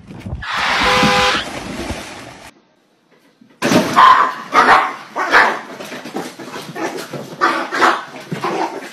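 A small dog barking repeatedly in short, sharp barks, about two a second, starting a few seconds in. It follows a brief burst of rushing noise and a moment of quiet.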